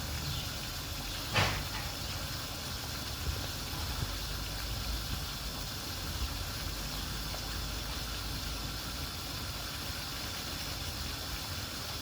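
Steady hiss of boiling water and steam, with a single sharp knock about a second and a half in.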